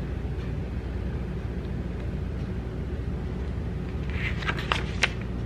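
Glossy photobook pages handled and turned, giving a few brief rustles and a sharp snap or click about four to five seconds in, over a steady low rumble.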